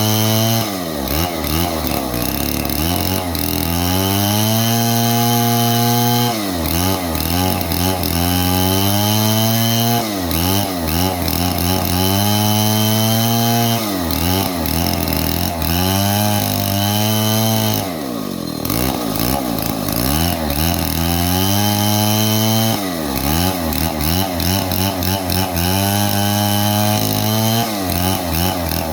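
Stihl 070 two-stroke chainsaw running at high revs and cutting wood. Its pitch dips again and again as the chain bogs in the cut and then picks back up, with one deep drop in revs past the middle before it climbs again.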